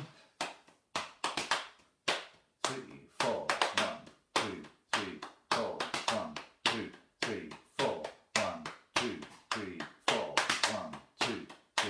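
Hands slapping on denim-clad thighs in a steady, slowed-down drum beat, about two slaps a second. The right hand keeps time and the left adds the off beats.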